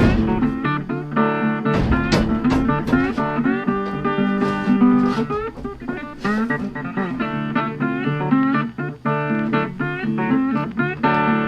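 Background music: a bluesy guitar instrumental with plucked strings.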